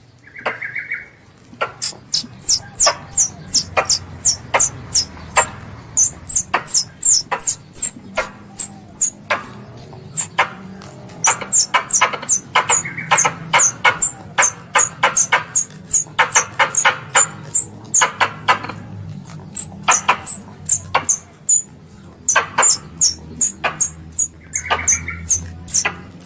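Squirrel calling: a rapid series of sharp chips, each with a short high whistle that falls in pitch, about three a second in runs with brief pauses. It is used as a lure call to bring squirrels in.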